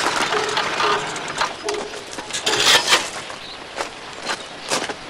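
Gravel crunching as a moped rolls to a stop and its rider steps off, with a louder scuff of gravel about halfway through, then a few footsteps on gravel about half a second apart near the end.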